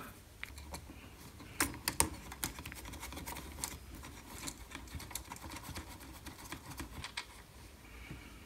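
Scattered light clicks and taps of plastic on metal as a red emergency-stop push button is fitted into a thin aluminium switch panel by hand, with two sharper clicks about one and a half and two seconds in.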